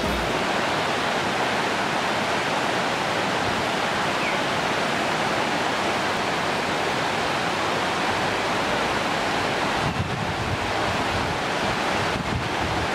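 Steady rushing of a stream running over stones, with a few faint clicks near the end.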